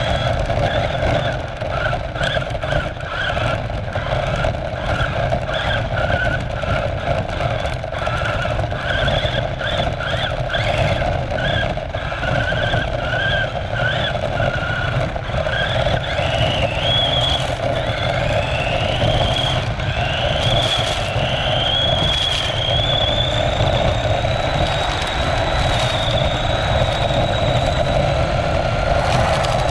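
RC car's motor and drivetrain whining, heard from a camera riding on the car. The pitch rises and falls with the throttle, then climbs about halfway through and holds a steady high whine at speed, over a constant rumble from the wheels on the ground.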